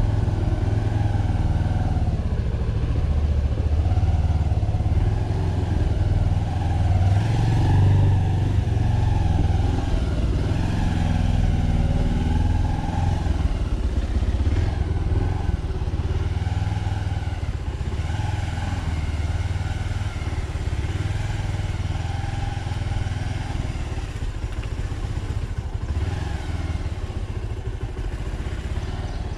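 Motorcycle engine running on the move, its pitch rising and falling with speed over heavy low rumble. It eases off a little in the second half.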